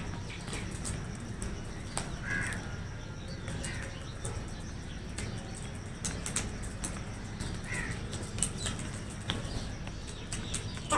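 Crows cawing a few short calls, the clearest about two seconds in and again near eight seconds, over scattered sharp ticks and a steady low hum.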